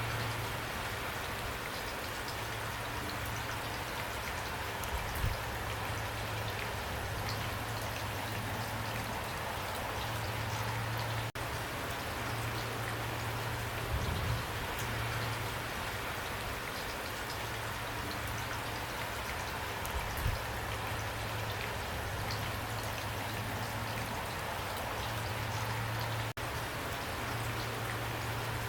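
Steady heavy rain: an even hiss of rainfall with scattered drop ticks, over a constant low hum, with a few soft low thumps.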